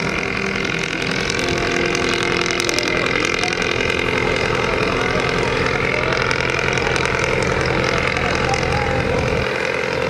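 Passenger ferry launch's engine running steadily as the boat pulls away from the jetty, an even drone with a deep rumble. The rumble drops away near the end.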